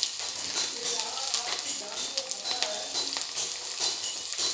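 Ginger and garlic frying in hot oil with cumin and fenugreek seeds in a kadai: a steady sizzle with many small crackles.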